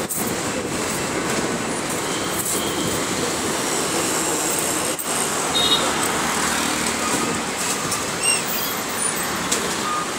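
Steady running noise of a city bus on the move, engine and tyre noise mixed with the traffic of the street outside.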